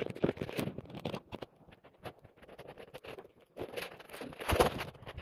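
Irregular footsteps and scuffing on a paved cave trail, mixed with rustling from the handheld camera; the loudest thump comes about four and a half seconds in.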